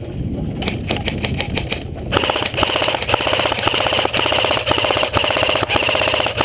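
Echo1 RPK airsoft electric gun firing: a few quick shots about half a second in, then a long, fast full-auto burst from about two seconds in that lasts roughly five seconds. The truck's engine runs steadily underneath.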